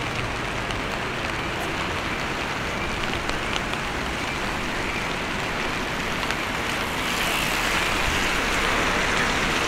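Steady rain falling, with scattered drops ticking close by; the hiss grows louder and brighter about seven seconds in.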